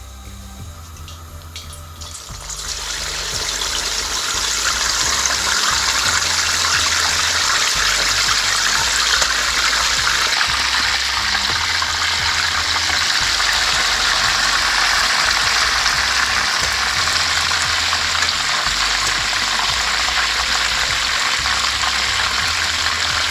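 Tandoori-marinated chicken legs going into hot frying oil: after a few small clicks, a loud, steady sizzle and crackle of frying starts about two and a half seconds in and keeps up throughout.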